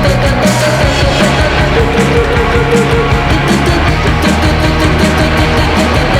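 Loud rock background music with distorted electric guitar and a steady drum beat.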